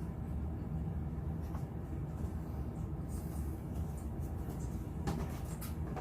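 Hard plastic crate panels being handled and pressed together, giving light clicks and scrapes, with a denser cluster of them about five seconds in. A steady low hum runs underneath.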